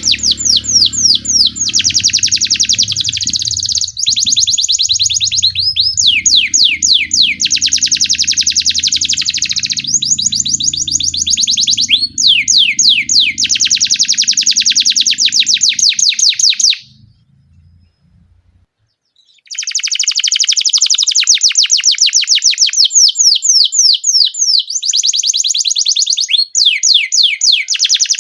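Canary singing long rolling trills of rapid repeated notes, breaking off for about two seconds a little past the middle, then starting again.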